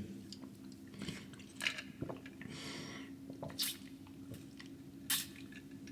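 Quiet, close-miked eating sounds: soft wet chewing and smacking with scattered small clicks, a brief noisier moment near the middle.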